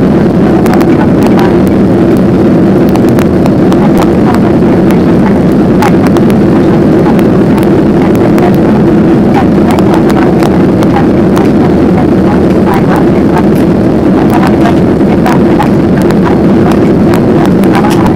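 Steady, loud cabin noise of a Boeing 737-800 in its climb: the drone of its CFM56 engines and rushing airflow. Frequent small clicks and ticks run through it.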